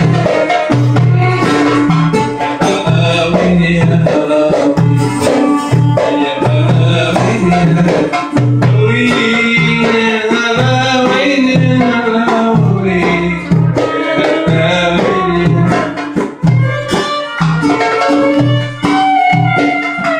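Live Middle Eastern music: goblet drums (darbuka) beating a steady, repeating rhythm under a melody played on a plucked long-necked lute.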